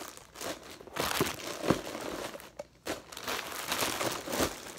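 Plastic bags holding slime crinkling and rustling as they are handled, with a few dull knocks.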